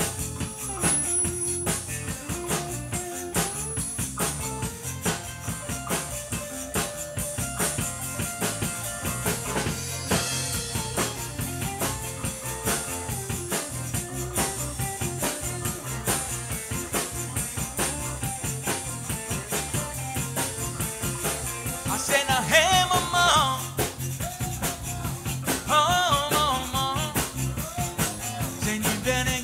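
Live zydeco band playing an instrumental passage: accordion, electric guitar and drum kit over a steady beat, with a rubboard scraping along. A wavering high melody line comes in twice near the end.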